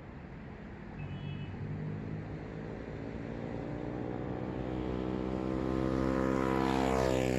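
A motor vehicle approaching in street traffic, its engine note growing steadily louder. Near the end it passes close by and the pitch drops.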